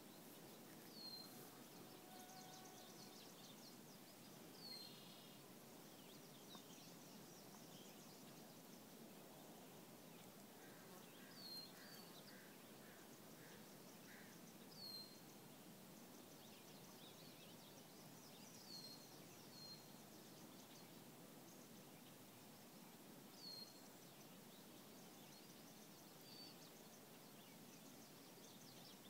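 Quiet natural ambience: a low steady hiss, with a bird giving a short, high chirp about every three to four seconds and other birds faintly trilling.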